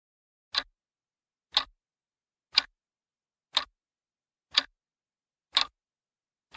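Clock-tick countdown sound effect: single sharp ticks, evenly spaced about once a second, timing a seven-second answer countdown.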